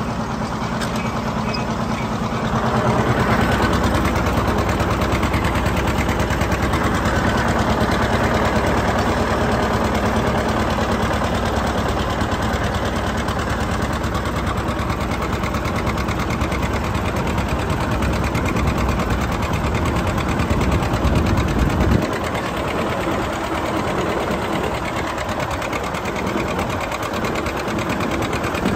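John Deere 730 two-cylinder diesel tractor engine running steadily under load, pulling a disk harrow, heard from the operator's seat. About 22 seconds in, the deep low rumble drops away and the engine sound gets a little quieter.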